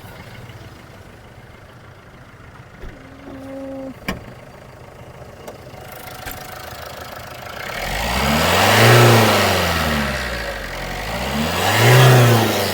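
Maruti Suzuki S-Cross's 1.6-litre turbocharged diesel engine idling, then revved hard twice, about 9 and 12 seconds in, each time rising in pitch and falling back to idle. Heard from outside the car; the revs are really loud.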